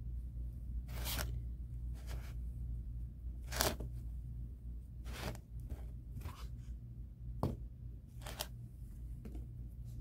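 Jute nautical rope rustling and scraping in the hands as it is pressed and wound around a plastic planter pot, in short scratchy strokes about once a second, over a steady low hum.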